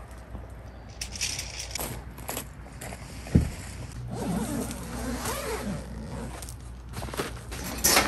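Rustling and knocking of camping gear and bedding being handled by hand, with a single low thump about three and a half seconds in and a sharp knock at the end.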